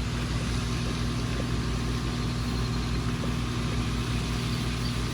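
Steady mechanical hum with a constant low drone and hiss, unchanging throughout.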